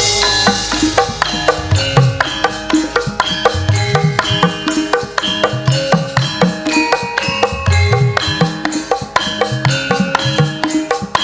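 Javanese gamelan playing an instrumental passage: struck bronze keyed instruments sound a running pattern of steady notes, driven by kendang hand-drum strokes.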